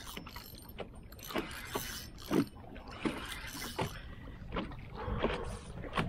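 Choppy water slapping irregularly against the hull of a small open boat, a splash every half second to second over a low steady rumble.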